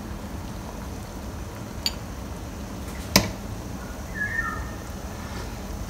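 A pot of stock simmering on a gas burner gives a steady low background, and a metal ladle clinks against the enamel pot twice, the louder knock near the middle. A short high two-part chirp is heard twice.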